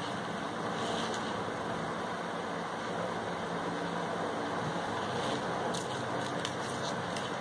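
Steady low hum over an even hiss of background noise, with a few faint light ticks about a second in and again near the end.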